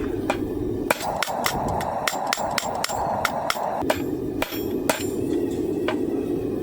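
Blacksmith's hammer striking hot coil-spring steel on an anvil to draw out the bar: a run of ringing blows at about three a second, then a few spaced blows in the last couple of seconds.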